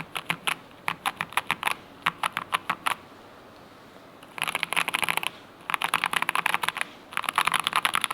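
Typing on a Keychron K2 HE all-wood keyboard with magnetic switches. Separate keystrokes come for about three seconds, then after a pause of over a second, fast runs of keystrokes in quick bursts.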